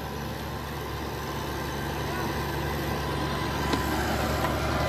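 Mahindra Oja 2127 compact tractor's three-cylinder diesel engine running steadily while working a rotavator, gradually growing louder.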